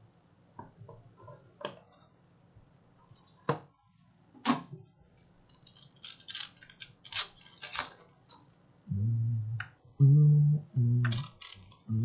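Trading card box and its wrapping being handled and opened: scattered clicks and knocks of cardboard, and a stretch of crinkling plastic wrap from about six to eight seconds in. Near the end come several short, louder low-pitched tones.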